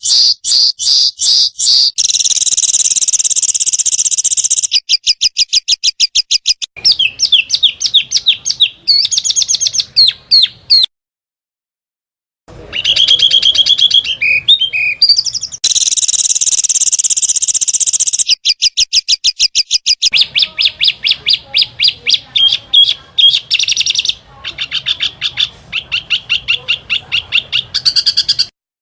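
Small songbirds singing rapid-fire 'tembakan' phrases: fast runs of sharp, high chirps and trills alternating with long buzzy notes. The song comes in spliced segments, with a gap of about a second and a half near the middle and an abrupt stop just before the end.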